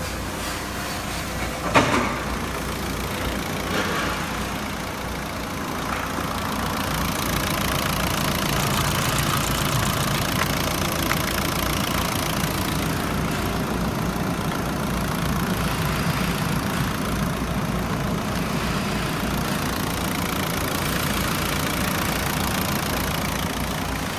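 Opel/Vauxhall Y17DT 1.7-litre four-cylinder turbodiesel idling steadily, getting louder after about six seconds, with a single sharp thump about two seconds in.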